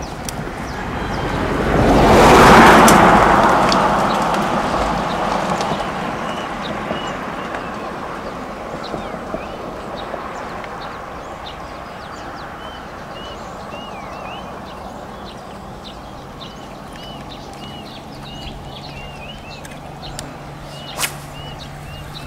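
A passing vehicle: its noise swells to a peak about two seconds in, then fades away slowly over several seconds. Small birds chirp repeatedly in the background, and a low steady hum comes in near the end.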